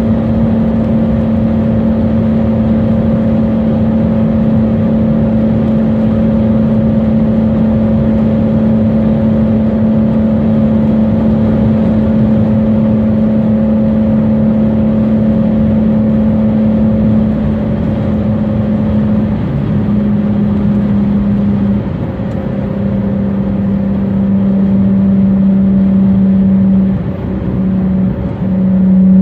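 Dodge Charger V6 engine droning at a steady highway cruise, heard from inside the car over road and wind noise. Its pitch shifts slightly a few times in the second half, and it gets louder right at the end.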